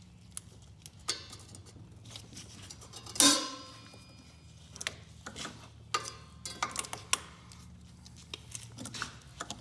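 Pliers clicking and scraping against an ATV's exhaust spring and rusty exhaust pipe flange as the spring is worked loose, with one loud ringing metal clank about three seconds in.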